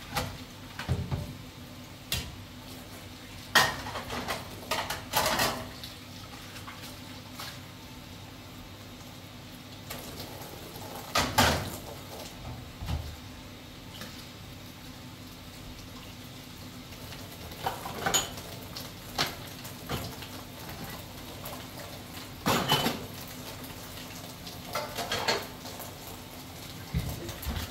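About a dozen short knocks and clinks at irregular intervals, the sound of hard objects being handled, over a faint steady low hum.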